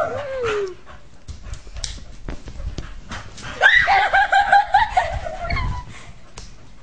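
Small pet dog whining and yipping in a run of short, wavering high notes lasting about two seconds, starting about halfway through. Light scuffling clicks come before it.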